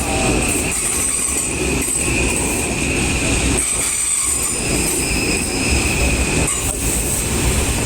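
Electric train running past with its wheels squealing on the rails: a steady high squeal over a low rumble.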